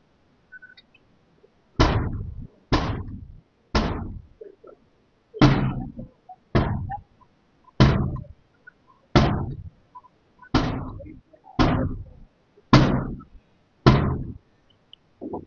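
Police forcing a door with a battering ram: eleven heavy blows about a second apart, each ringing out briefly.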